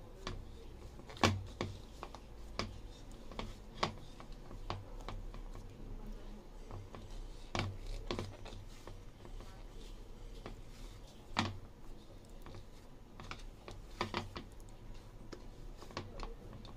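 A hand kneading pumpkin and glutinous rice flour dough in a plastic bowl, giving irregular soft taps and knocks as the hand and dough bump the bowl. Louder knocks come about a second in and again about two-thirds of the way through.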